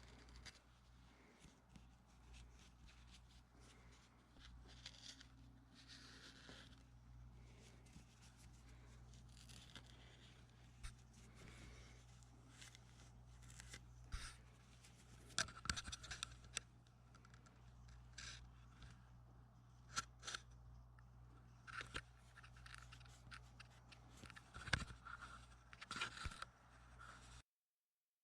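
Faint scraping, scratching and scattered sharp clicks of hand work with metal parts, over a steady low hum. The sound cuts off suddenly near the end.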